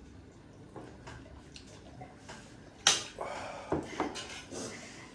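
Tableware clinking during a meal: a few faint clicks, then a sharp loud clack about three seconds in, followed by several lighter clinks.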